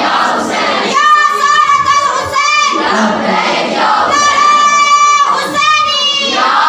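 A high voice singing a devotional qaseeda in long held phrases, with wavering pitch, broken by noisier stretches between the phrases.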